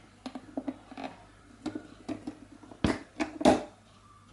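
Handling of an Olympia SM8 portable typewriter: scattered light clicks and knocks, with two louder knocks about three and three and a half seconds in.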